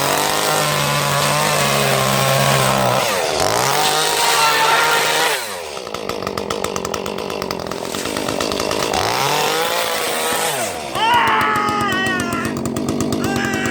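Echo CS-310 two-stroke chainsaw revved up and held at high speed several times, dropping back toward idle between revs, as it cuts up yard debris. Near the end a higher wavering sound rides over the running saw.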